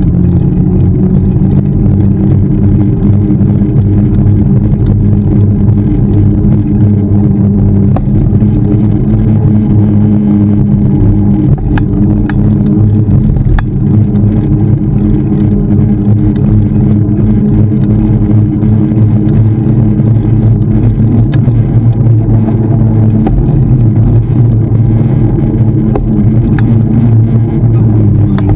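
Wind buffeting and road rumble on a bicycle-mounted GoPro Hero 2 as the bike rolls along a paved street: a loud, steady, low rumble.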